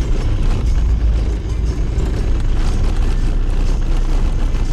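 Car driving on a cobblestone street, heard from inside the cabin: a loud, steady, low rumble of the tyres running over the cobbles.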